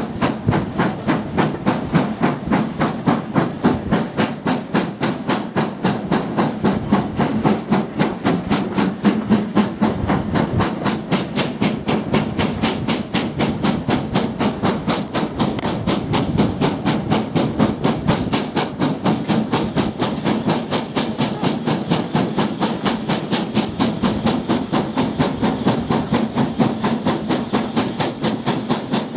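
Steam locomotive working a train, heard from the carriages: a steady, fast rhythm of exhaust chuffs, a few beats a second, over a constant hiss of steam and running noise.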